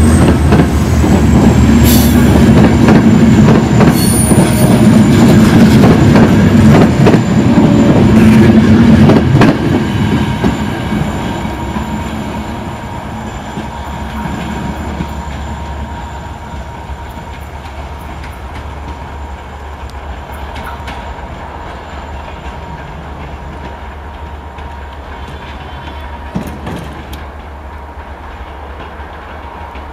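Passenger coaches rolling past close by, wheels clattering over the rail joints, loud for about the first ten seconds, then fading to a low rumble as the train draws away, with a thin steady wheel squeal. A single sharp clank sounds near the end.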